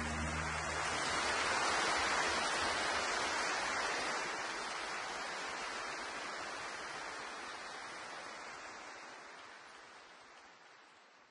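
A soft, even rushing hiss that swells about two seconds in, then slowly fades out.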